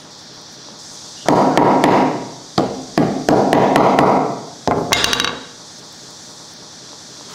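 Hand tools at work on wood: two noisy strokes about a second long each, then a quick run of sharp knocks.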